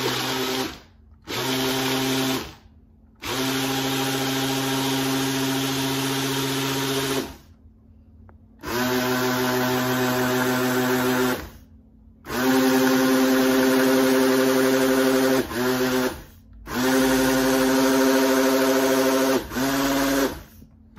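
Countertop blender motor running in pulses of one to four seconds, stopping and restarting about eight times, as it works through a thick smoothie of frozen strawberries, ice and apple juice.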